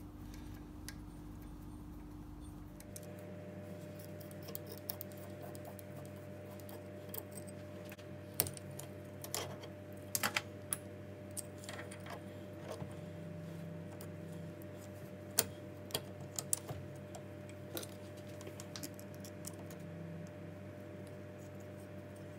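Hex key turning the jaw cap screws and the steel jaw blocks of a Metz hand shrinker-stretcher being lifted out and refitted, as the shrinking jaws are swapped for the stretching jaws: scattered light metal clicks and clinks, a few sharper knocks, over a steady hum.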